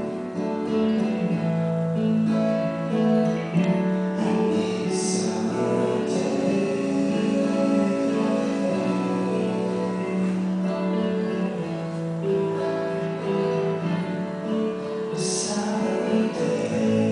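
Gentle instrumental music led by plucked acoustic guitar, with long held notes beneath it.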